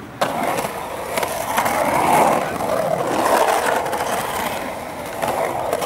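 Skateboard wheels rolling and carving on the concrete bowl, a continuous rumble that swells and eases as the skater rides the transitions, with a few sharp clicks from the board in the first couple of seconds.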